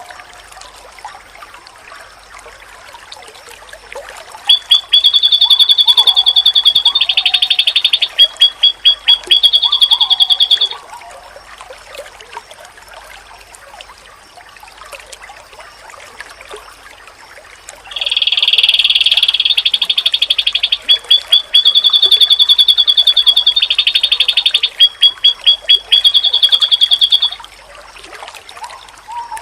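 Pleci (white-eye) song in two long, loud bouts of high buzzy trilling. Each bout breaks into fast stuttering notes. Softer, lower chirps are heard between the bouts.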